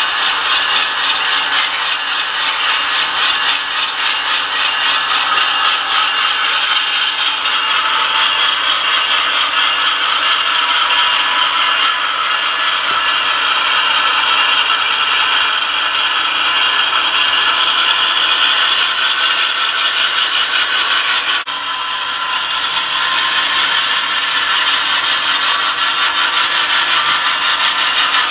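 HO scale model train rolling along the layout's track: a steady, dense mechanical rattle of fast, fine clicks from the wheels running over the rails and joints. It dips briefly about three-quarters of the way through.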